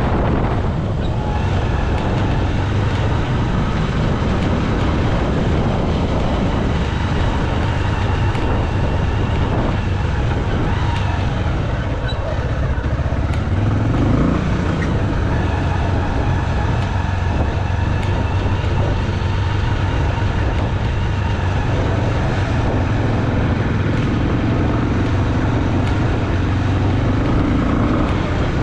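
Motorcycle engine running steadily while riding, with a short rise in engine pitch about halfway through.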